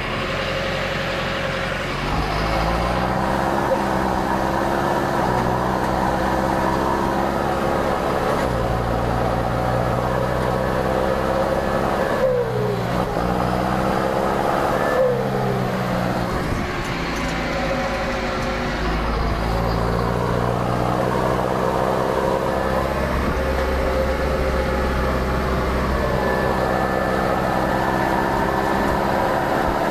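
John Deere 6330 Premium tractor engine pulling hard under the weight of a loaded grain trailer, with a steady turbo whistle over the engine note. The engine speed climbs early on, then dips and picks up again twice around the middle.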